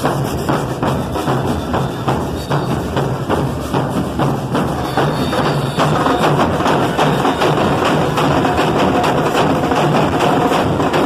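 Band music with trumpets over a steady, driving drum and percussion beat.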